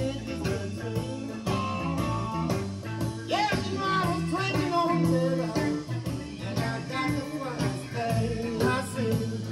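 A blues-rock song with guitar and singing, played back through a home stereo's loudspeakers.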